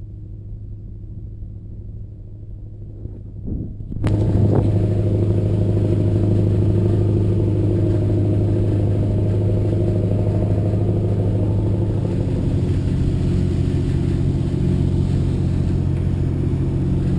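Riverboat's diesel engine droning steadily with a low, even hum. It is muffled and quieter for about the first four seconds, then suddenly louder and fuller.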